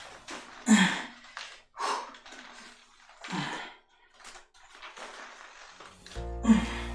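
A man breathing hard during weighted sit-ups, with about four forceful exhales a second or two apart, some voiced as short grunts of effort. Music starts near the end.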